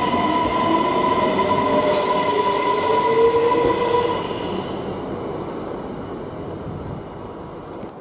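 Bombardier Regina (X50) electric multiple unit pulling away from the platform. Its traction motors give a whine that rises in pitch as it gathers speed, over a steady high tone, with a brief hiss about two seconds in. The sound fades as the train draws away.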